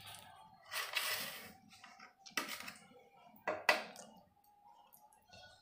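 Flat steel spatula scraping against a square metal tin as it presses and pushes crumbly kalakand mixture into place: several short scrapes, the loudest about a second in.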